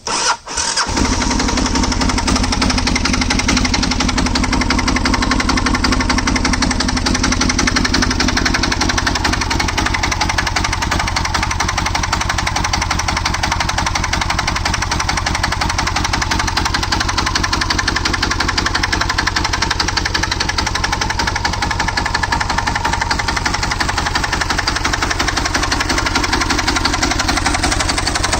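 Diesel engine of a motorcycle starting up, catching after a brief stumble, then running steadily with a rapid, even diesel knock.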